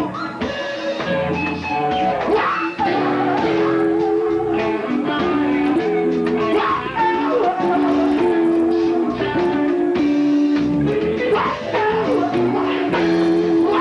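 A live rock band playing a song, with electric guitar and bass riffing over drums.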